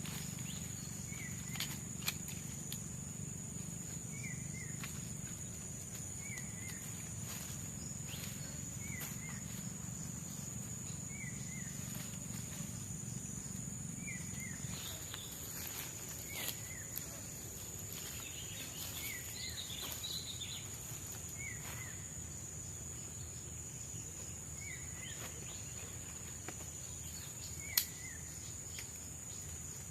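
Forest night ambience: a steady high insect drone with a short two-part chirping call repeating about every two seconds and a few faint clicks. A low rumble underneath fades out about halfway through.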